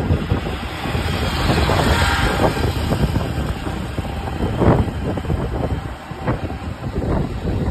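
Outdoor street noise with a heavy low rumble and scattered clatter and knocks, and a hiss that swells about two seconds in.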